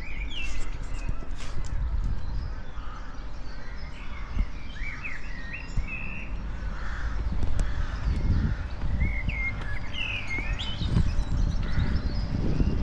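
Birds calling in short, repeated chirps with quick rising and falling pitch, over a steady low rumble.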